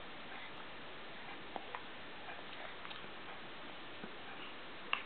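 Quiet room hiss with a few faint, short clicks, about a second and a half in and again near the end.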